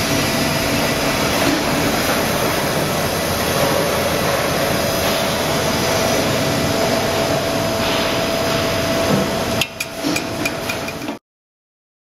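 Industrial roller coffee grinder running while grinding beans: a loud, dense, steady rush of noise over a faint steady hum. Near the end it thins out with a few sharp clicks, then cuts off suddenly.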